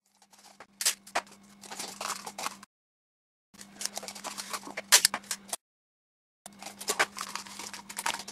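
Small handling noises from hands working at a kitchen worktop: scattered clicks, taps and scratchy rustles over a low steady hum. The sound cuts out to dead silence twice for about a second.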